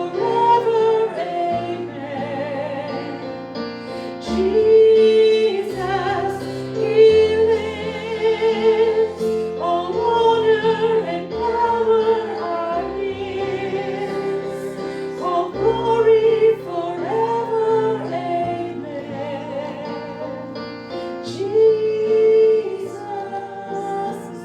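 A woman singing a slow song with vibrato, over a sustained instrumental accompaniment with held bass notes.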